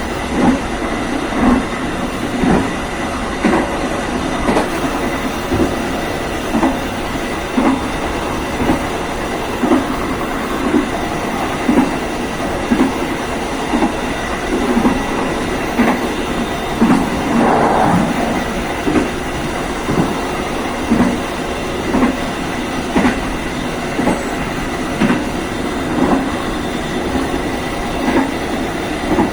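Passenger train rolling along jointed rail: the wheels knock over the rail joints about once a second, in a steady clickety-clack over a continuous running rumble.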